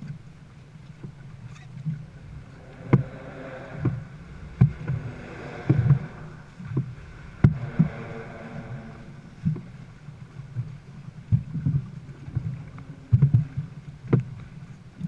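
Dragon boat crew paddling, with a sharp stroke or knock about once a second over a low rumble of water and wind.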